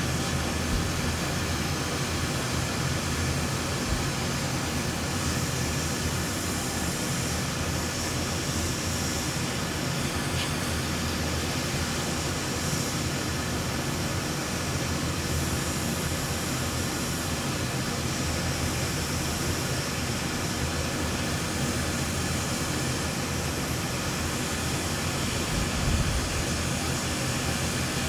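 Steady rush of air from a fan or blower on an electronics repair bench, holding an even level throughout, with a brief louder bump near the end.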